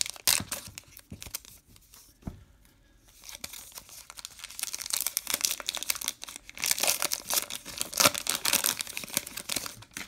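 A Topps Gypsy Queen baseball card pack wrapper crinkling and tearing as it is peeled open by hand. A few sharp crackles come at the start, then a dense run of crackling from about three and a half seconds in until just before the end.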